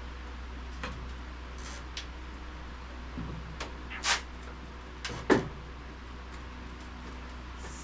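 Sheet metal and tools being handled at a workbench: about seven short, scattered knocks and clanks at no regular pace, the loudest about two-thirds of the way through, over a steady low hum.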